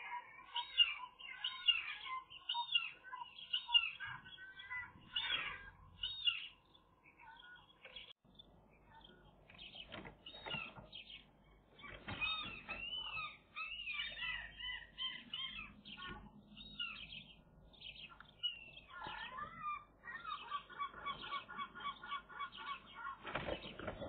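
Wild birds singing and calling outside a magpie nest, with many short whistled and chirping phrases and a fast, even trill of repeated notes a few seconds before the end. Twigs of the stick nest rustle and click now and then as the magpie shifts in the cup.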